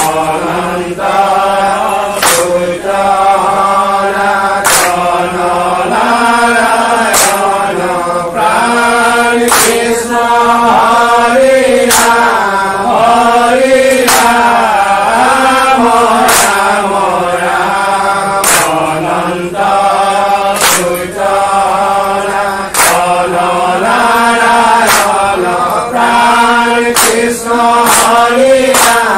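A group of men chanting a Vaishnavite naam-prasanga together in unison, a repeating melodic line sung by many voices. Sharp claps mark the beat roughly every two to two and a half seconds.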